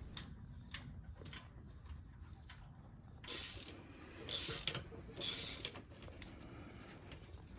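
Three short bursts of metallic ratcheting, each about half a second, with faint clicks between, from work on a Chevrolet 454 big-block engine being stripped of its cylinder heads.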